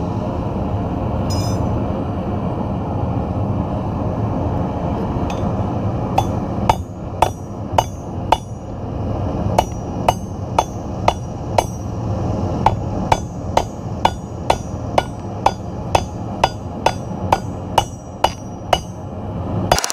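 Hand hammer striking hot steel bar stock on an anvil, a steady run of sharp metal-on-metal blows at about two a second starting about six seconds in. Under it the steady rushing of the forge's burner.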